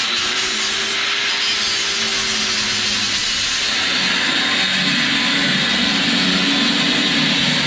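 7-inch angle grinder running steadily as it cuts through expanded-metal wire lath, used in place of tin snips. Its pitch shifts a little lower about halfway through.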